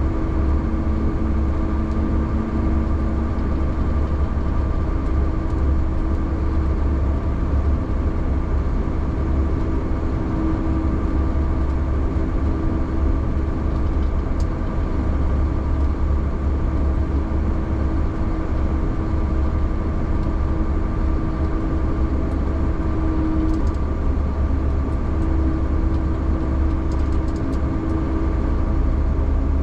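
Vehicle engine running steadily, heard from inside the cab as a constant low rumble with a steady hum over it.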